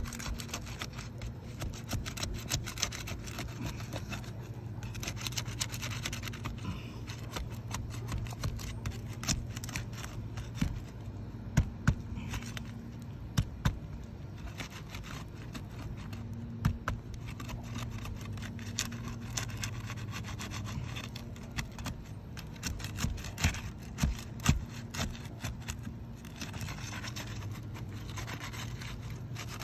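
A flat hand tool scraping and prying under the tabs of Tamko asphalt shingles, breaking the sealant strip loose, with gritty scrapes and sharp clicks now and then.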